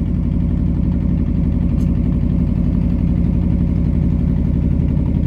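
Fishing boat's engine running steadily at an even speed, a constant low hum with no change in pitch.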